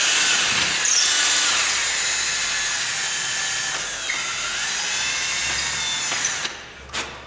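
A power drill running at high speed with the side of its bit grinding into wood to widen a deadbolt bolt hole: a steady, rasping whine. It stops about six and a half seconds in, followed by a sharp click.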